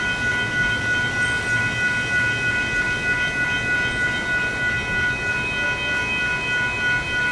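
WCH Gen 2 electronic railroad crossing bells ringing without pause, a steady high electronic ringing that pulses slightly. The crossing is activated for a maintainer's test with no train passing.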